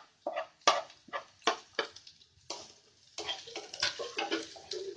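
A spoon knocking sharply against the cooking pan about six times, then a denser crackling as chopped curry leaves sizzle in the hot oil with the fried onions while being stirred.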